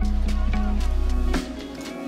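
Background music with a heavy bass line, held notes and a steady beat; the bass drops out near the end.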